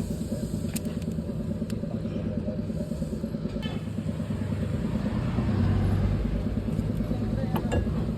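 A vehicle engine running steadily, a low rumble that swells slightly about halfway through. A few light metallic clicks come over it from parts being handled during the caliper-pin greasing.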